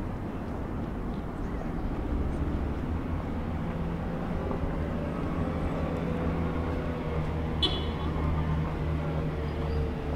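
Engine of a passing motorboat on the river: a low steady drone that grows after about two seconds, with a tone slowly dropping in pitch in the second half. A brief high chirp cuts in about three-quarters of the way through.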